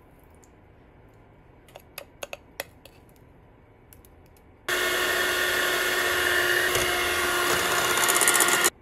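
A few light clinks in a glass bowl as the mixture is stirred, then an electric hand mixer switches on about halfway through and runs at a steady speed, its beaters whisking a thin matcha mixture in the glass bowl, until it cuts off suddenly near the end.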